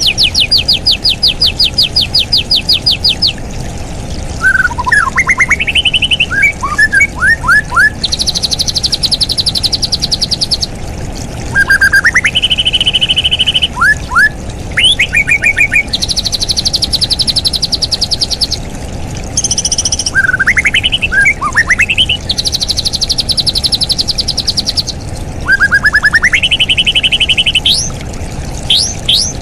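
Bird song: a straw-headed bulbul's (cucak rawa) loud, liquid rising phrases, alternating with rapid high trills two to three seconds long, over a steady hiss.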